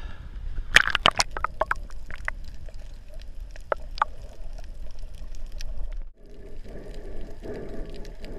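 Water splashing and sloshing against a camera as it dips below the surface, with a cluster of sharp splashes about a second in. This gives way to muffled underwater sound with scattered clicks.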